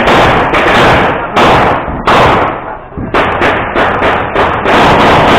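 Gunshots fired in a practical shooting course of fire: a few loud shots spaced about half a second to a second apart, then a fast string of about four or five shots a second from about three seconds in, each ringing after it.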